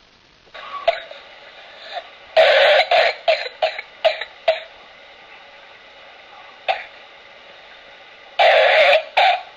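Infant coughing in paroxysms of whooping cough (pertussis): a run of six or so quick coughs about two seconds in, a single cough near the middle, and a longer coughing burst near the end. No inspiratory whoop follows the coughing fits.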